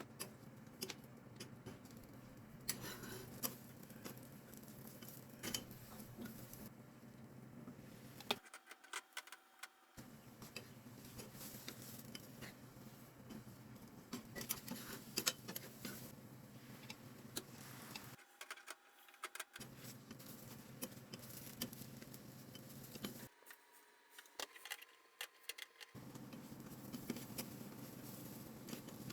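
Home kitchen cooking sounds: scattered clicks, taps and light clatter of utensils and dishes over a steady low hum, in several short clips separated by abrupt cuts.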